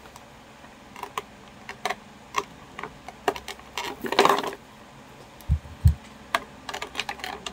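Scissors snipping at a clear plastic packaging bag, a series of sharp clicks, with the plastic crinkling about four seconds in and two dull handling thumps shortly after.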